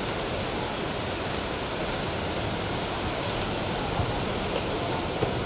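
Steady rushing sound of sea surf, an even noise with no distinct waves or breaks.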